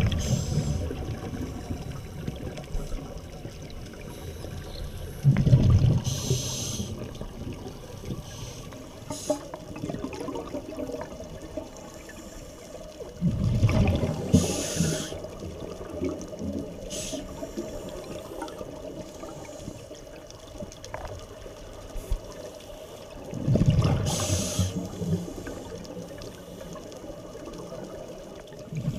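Scuba breathing through a regulator underwater: three slow breaths about ten seconds apart, each a low bubbling rush of exhaled bubbles paired with a short hiss, over a steady underwater background.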